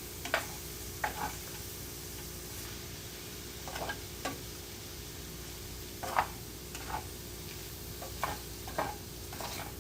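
Ramen stir fry cooking in a frying pan: a steady low sizzle, with a utensil stirring and scraping against the pan in short irregular knocks.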